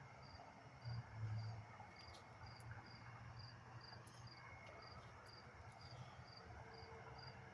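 Faint cricket chirping: short high chirps repeating evenly, about two a second, over a low steady hum.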